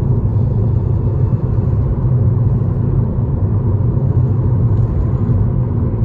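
Steady low rumble of a car's engine and road noise, heard from inside the cabin while driving.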